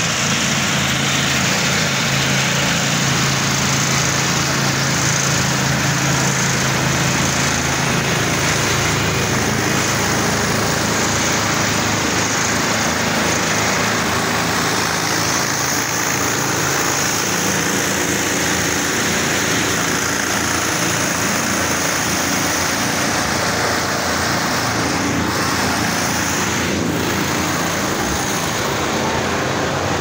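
Asphalt paver's diesel engine running close by, a steady, loud mechanical drone with no breaks.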